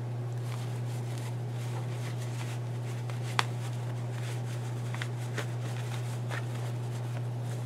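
Cotton fabric and batting rustling softly as a sewn bowl cozy is turned right side out by hand, with one sharp click about three and a half seconds in, over a steady low hum.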